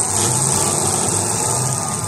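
Several demolition derby cars' engines running loud and steady as the cars push against each other.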